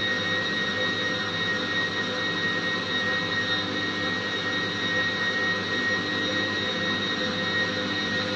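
Electric food processor motor running steadily as it mixes cake batter, a constant hum with a high whine.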